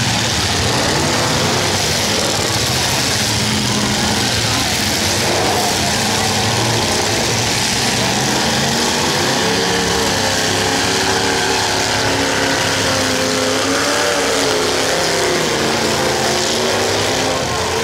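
Several demolition derby cars' engines running and revving hard at once, a loud dense mix of exhaust noise, with the pitch of one engine rising and falling repeatedly in the second half.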